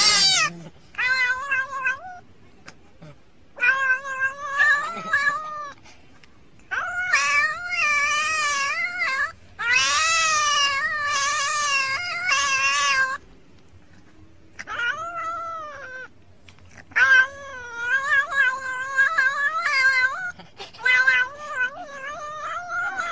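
Domestic cat meowing in long drawn-out calls, about eight of them with short pauses between, the pitch wavering up and down within each call.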